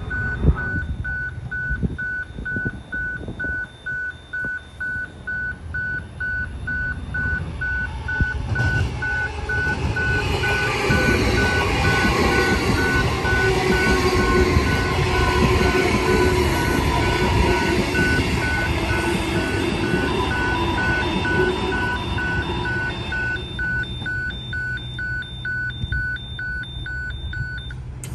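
Railway level crossing warning bell beeping steadily, about two and a half beeps a second, stopping just before the end. An electric suburban train passes, its wheels and motors building to a broad rumble with slowly falling whines from about eight seconds in, then easing off.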